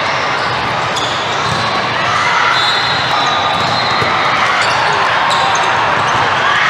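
The steady din of a large hall during volleyball play: many voices talking and calling from the crowd and courts, with a few sharp thuds of volleyballs being hit.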